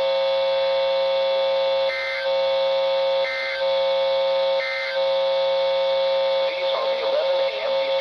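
NOAA Weather Radio broadcast heard through weather radio receivers: the transmitter's steady buzzing background hum, broken three times by short data bursts just over a second apart, the SAME end-of-message code that closes the Required Weekly Test.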